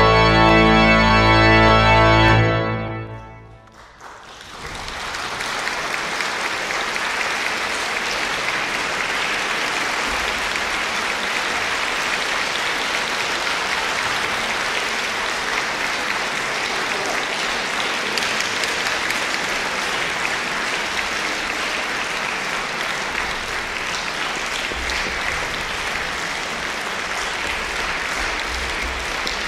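Flentrop pipe organ's final chord, held for about two and a half seconds, then released, with the hall's reverberation dying away over about a second. Then steady audience applause.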